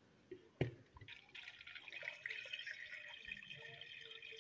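Water poured from above into a steel pot of raw boneless chicken pieces and whole spices, a faint steady splashing from about a second in, the start of the chicken stock (yakhni). A short knock comes just before the pouring.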